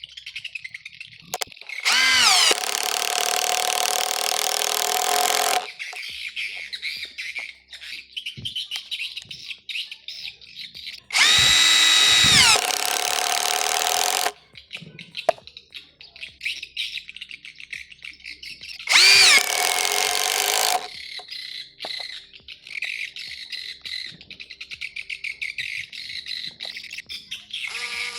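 Dagmara DTD173 cordless impact driver run in three bursts of a few seconds each, the motor pitch rising as it spins up and then holding steady. Birds chirp in the background between the runs.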